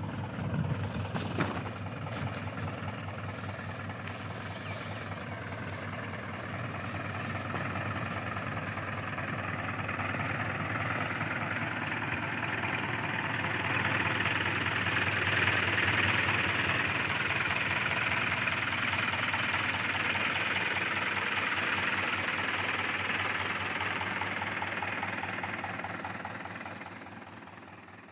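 Mahindra 415 DI tractor's four-cylinder diesel engine running steadily at low revs with a knocking diesel beat. It grows louder through the middle and fades out at the end.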